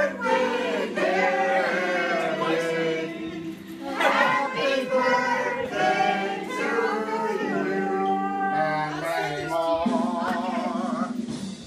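A group of people singing together without instruments, several voices holding long notes with no beat, fading just at the end.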